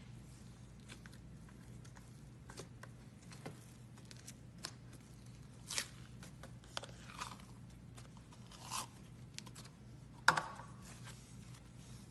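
Slime being squeezed and poked by hand, giving scattered small crackles and pops. The loudest is a sharp snap about ten seconds in. A faint low hum runs underneath.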